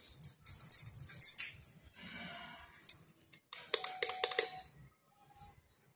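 Metallic clicks, clinks and rattles, with a short ringing metal note among a cluster of clicks about four seconds in.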